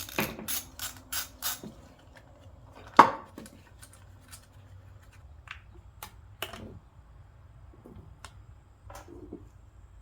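Ratchet wrench clicking in quick strokes, about three a second, as intake manifold bolts are worked loose, stopping before two seconds in. About three seconds in comes a single loud metal clunk, followed by scattered light clinks and knocks of tools and parts.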